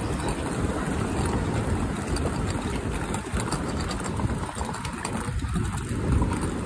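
Wind buffeting the phone's microphone: a steady low rumble that rises and falls in gusts.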